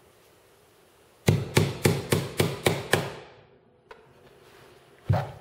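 Small hammer driving a tack into a wooden canvas stretcher bar to tack the canvas in place: seven quick taps, about four a second, then one more single tap near the end.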